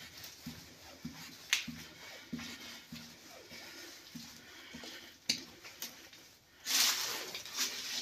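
Footsteps echoing in a stone-vaulted tunnel, about two steps a second, with a few sharp clicks and a short, louder rustle near the end.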